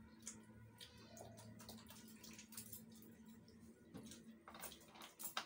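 Near silence: a faint steady hum with scattered soft clicks and taps of hands eating rice from steel plates, a couple of sharper clinks near the end.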